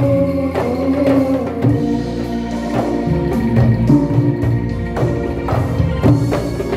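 Instrumental passage by a bamboo angklung ensemble, the shaken tubes sounding held rattling chords, over hand drums struck in a steady beat.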